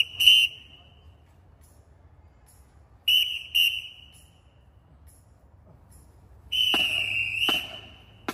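Drum major's whistle commands: two short blasts, two more short blasts about three seconds in, then a longer blast broken once near the end.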